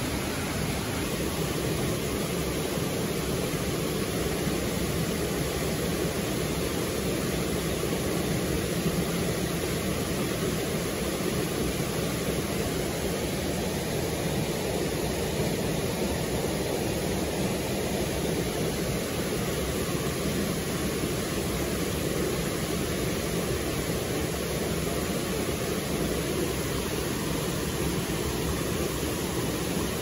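Mountain stream running over rocks: a steady, unbroken rush of water.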